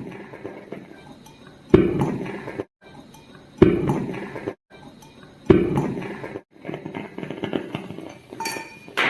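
Hydrogen gas from zinc granules in hydrochloric acid igniting at a burning matchstick. It gives sharp pops about two seconds apart, three of them, each with a short ringing tail, followed by softer irregular clinks.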